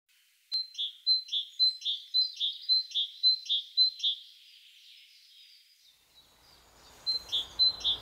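Great tit singing its two-note song, a short high note followed by a longer lower one, repeated about twice a second in a run of seven phrases. After a pause of nearly three seconds the song starts again near the end. Great tits singing again in late winter are a sign that the breeding season is near.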